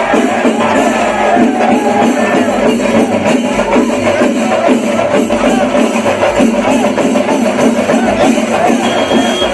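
Loud music with busy percussion, steady throughout.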